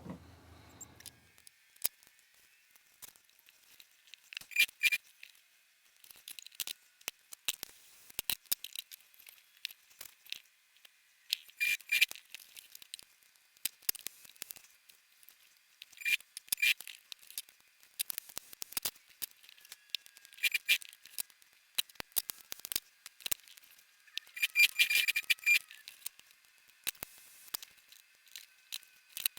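Scattered light clicks and scrapes of small hard objects being handled, coming in short clusters every few seconds with no steady rhythm.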